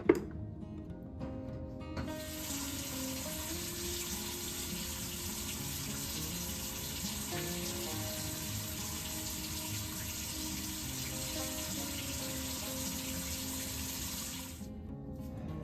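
Water running steadily in a continuous stream, starting about two seconds in and cutting off near the end, over quiet background music.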